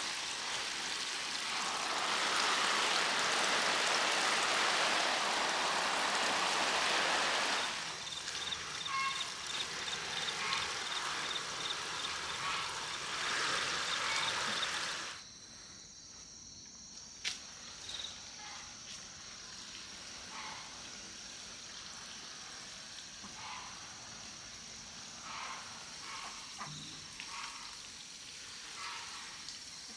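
Water running or pouring for about the first fifteen seconds, then cutting off abruptly. A quieter stretch follows with a steady high-pitched drone and scattered small clicks and knocks.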